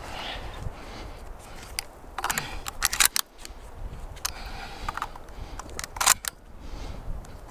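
Shotgun being handled and reloaded after firing: a series of sharp metallic clicks and snaps as shells go in and the action is worked, the loudest snaps about three and six seconds in.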